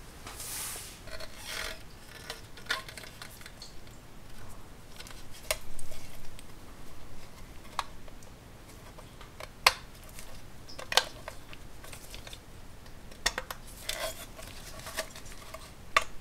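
Scattered sharp metal clicks, taps and scrapes as a small tin-toy friction motor is set down and fitted into a tin-plate toy car body.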